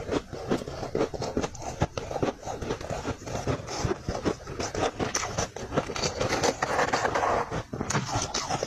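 Freezer frost being bitten and chewed: a quick, uneven run of crisp crunches.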